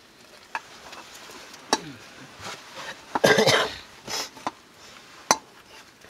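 Metal bowls and a serving spoon clinking and scraping as cooked rice is dished out: a few sharp knocks, with a longer, louder scrape about three seconds in.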